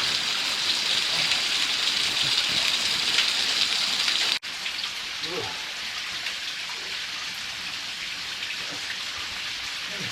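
Water falling and splashing steadily in a mountain stream cave, a dense rain-like hiss of spray. It drops abruptly to a slightly quieter level about four seconds in.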